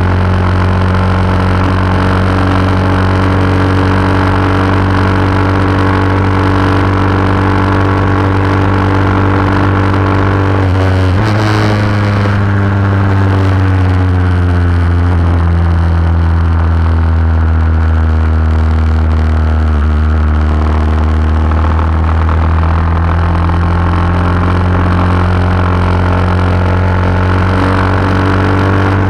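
A vintage lightweight superbike racing motorcycle's engine, heard from on board, runs at high revs down a straight. About eleven seconds in its pitch drops sharply as the bike slows for a corner. It then climbs steadily again as the bike accelerates out.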